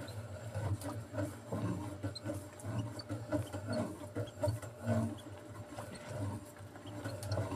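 Irregular rubbing and knocking as a handline with a hooked baby tuna is hauled in hand over hand into a small boat.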